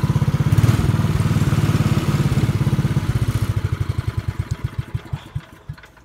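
The small engine of a Manco three-wheeler ATC idles with an even, rapid beat. From a little past halfway its firing slows and spreads out, and it dies away about a second before the end. The engine had been struggling to keep running.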